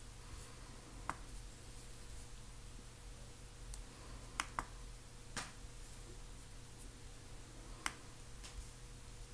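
Clicks from the touchpad of an Acer Aspire V5-123 laptop as it is navigated: about five short, sharp clicks, two of them close together midway, over a faint steady hum.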